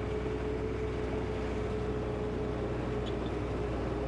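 Tractor's diesel engine running steadily, heard from inside the cab.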